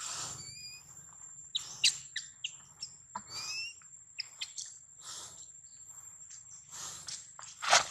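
Outdoor ambience: a steady high thin whine, two short rising chirp calls, and scattered clicks and rustles, the sharpest about two seconds in and near the end.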